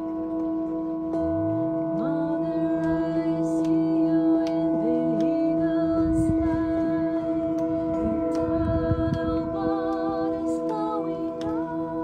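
Metal singing bowls played with ball-tipped mallets, several steady ringing tones held throughout. Over them, sliding and wavering tones rise and bend, and a low rumble comes in around the middle.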